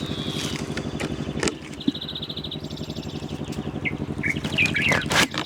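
Small birds chirping in quick repeated trains, with scattered short calls near the end, over a steady low hum.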